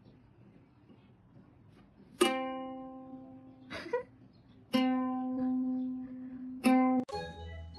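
Three separate notes of the same pitch from a plucked string instrument, each ringing out and fading, after about two seconds of quiet. Near the end a quicker run of several different notes begins.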